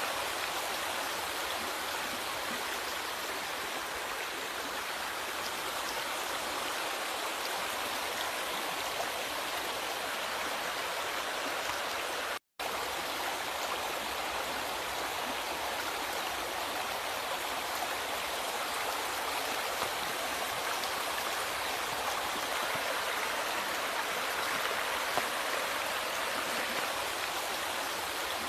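River water flowing in a steady, even rush, cut by a split-second dropout to silence about twelve seconds in.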